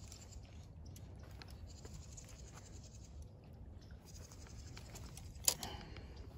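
Faint rustling and scratching from handheld handling over dry grass and straw, with scattered small clicks and one sharp click about five and a half seconds in.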